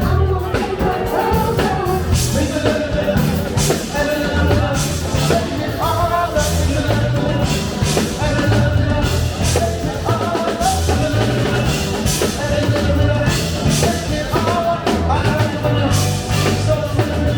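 A live funk and soul show band playing over a PA, with drum kit, bass and a sung vocal line over a steady beat.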